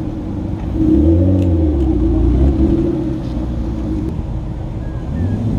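A car engine revving up about a second in and easing back off, loudest for a couple of seconds before fading. Another engine rises near the end.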